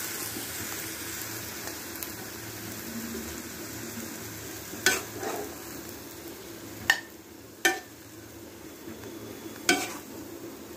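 Shapla and prawn curry sizzling steadily in a black karahi, with four sharp knocks of a metal spatula in the second half as the food is scooped out.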